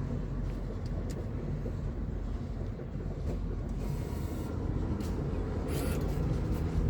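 Steady low rumbling outdoor background noise, with a few faint clicks and a brief hiss near the end.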